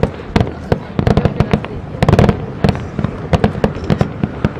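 Aerial fireworks shells bursting in a rapid barrage: many sharp booms and cracks a second, thickest about two seconds in.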